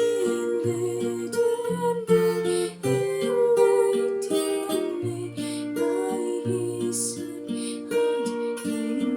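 Acoustic guitar music: plucked and strummed chords over a recurring bass note pattern.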